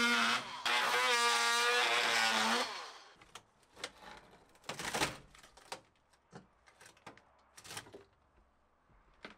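A handheld power tool's motor running in two stretches with a brief break, its pitch dipping now and then under load, stopping about two and a half seconds in. After that come scattered knocks, clicks and rustling as material is pulled and handled.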